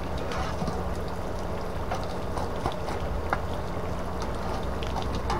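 Hot coals being shovelled onto the lid of a cast iron camp oven, with a few sharp clicks of coals and the metal shovel against the iron, over a steady low rumble.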